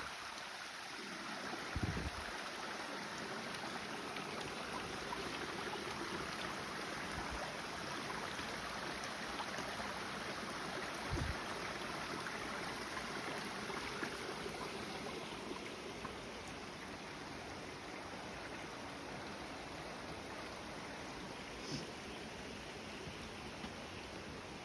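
A stream running steadily, an even rushing of water, with a few soft low thumps now and then.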